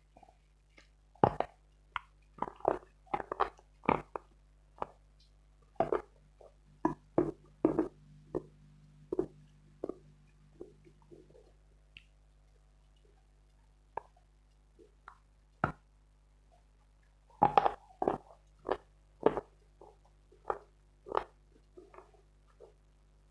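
Dense dry Khrapovsky chalk being bitten and chewed: sharp, separate crunches in irregular clusters, thinning to a few isolated crunches in the middle and then coming thick and fast again.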